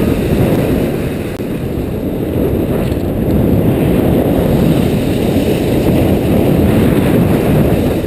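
Steady low rushing of wind buffeting a body-worn action camera's microphone during a downhill ski run, mixed with skis sliding over packed snow.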